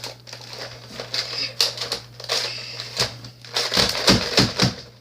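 Plastic clacking and rattling of a Nerf Elite Rampage slide-action blaster being worked: the slide primed and the trigger pulled as it fails to fire properly from its magazine. The clatter thickens into a quick burst of clacks a little past halfway, under a steady low electrical hum.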